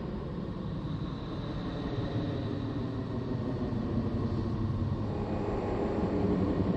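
Voyager 2's recording of Neptune's electromagnetic emissions, converted to audible sound: a deep, rough, continuous drone that slowly grows louder toward the end, with a faint high whistle in the first few seconds.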